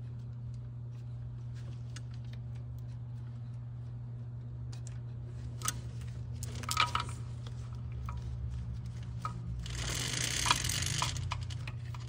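Metal timing-chain links clicking against the sprockets and each other as the double-row chain of a Mercedes OM642 V6 diesel is worked through by hand. A steady low hum sits under it. The clicks are scattered, with a small cluster around six to seven seconds in and a rattling stretch of about a second and a half near ten seconds in.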